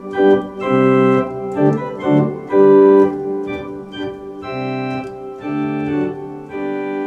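Viscount Sonus 60 Physis digital organ playing the choir manual's diapason stops: a series of held chords that change about once a second.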